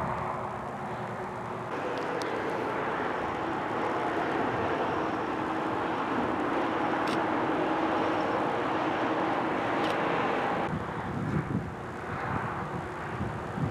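Storm gust front: wind and heavy rain making a steady roar that swells about two seconds in and eases near the end, with a faint steady hum underneath.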